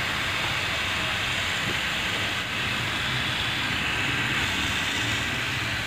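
Water spraying from a hose nozzle onto loose soil in plastic seedling cups: a steady, even hiss, watering the freshly sown seeds to keep the soil moist.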